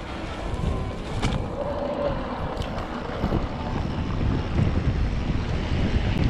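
Wind buffeting the microphone and tyres rumbling over a dirt trail as an electric mountain bike rolls downhill, getting louder as it picks up speed, with a couple of sharp clicks.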